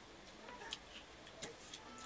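Faint eating sounds: fingers mixing rice on steel plates and chewing, with a few soft sharp clicks, one before the middle and two close together past it.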